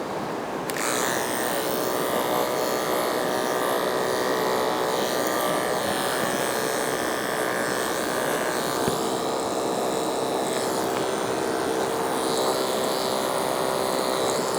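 Electric dog grooming clippers switched on about a second in and running with a steady buzz.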